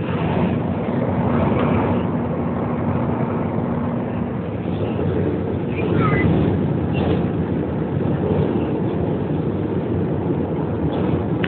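Airliner cabin noise in flight: a steady rushing of engines and airflow heard from a window seat by the wing. A faint steady hum stops about four seconds in.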